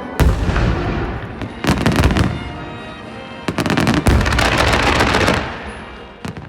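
Fireworks bursting in three volleys: a bang just after the start, a rapid cluster of reports about two seconds in and another about four seconds in, each followed by crackling that fades out near the end. Music plays underneath.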